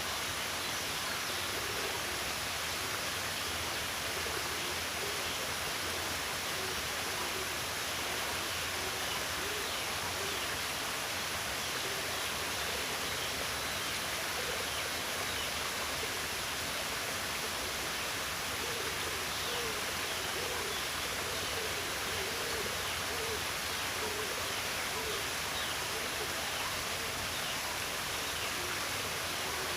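Steady rushing water, like a stream or small waterfall. About two-thirds of the way through comes a run of short, low calls repeating quickly for several seconds.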